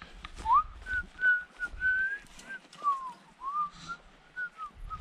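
A person whistling a tune: about ten clear notes, some held and some sliding up or down, with soft thumps and crackles of footsteps on dry ground underneath.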